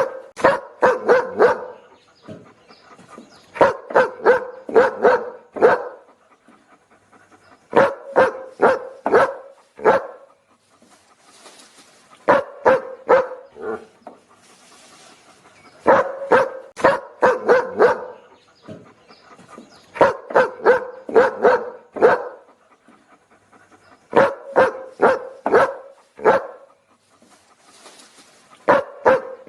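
A dog barking in repeated bouts of four to six quick barks, with a pause of a second or two between bouts, the pattern coming back about every four seconds.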